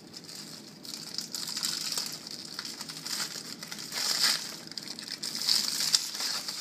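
Copper foil and thin film layers of an iPad 3's lithium-ion battery cell crinkling as gloved hands unfold and pull them apart. The crinkling comes in uneven swells, loudest about four seconds in and again near the end.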